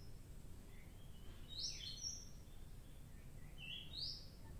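A small bird chirping: two short phrases of quick, high, rising notes about two seconds apart, over a faint steady low rumble of background noise.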